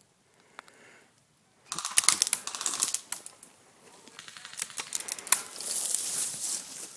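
Airsoft electric rifles firing full-auto bursts: a fast mechanical clatter of rapid clicks that starts about two seconds in and comes again in the second half.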